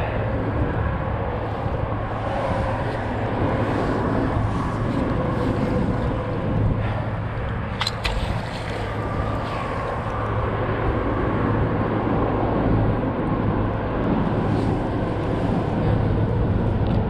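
Steady low engine hum, with one sharp click about eight seconds in.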